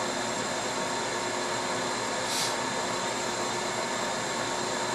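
Steady whooshing fan noise with a few faint, steady whine tones running through it, and a brief soft hiss about two and a half seconds in.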